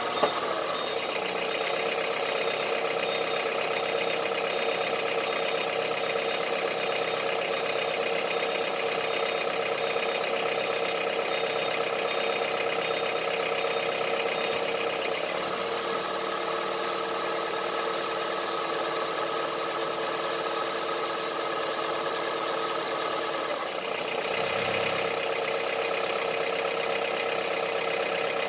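Honda CR-V III 2.4-litre four-cylinder petrol engine idling steadily with a diesel-like knock, the fault the owner is recording. The tone shifts slightly about halfway through and again near the end.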